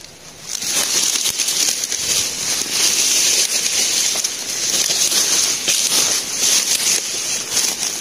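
Dry grass and dead leaves rustling and crackling as they are pushed through and trampled, a dense crackle that starts about half a second in.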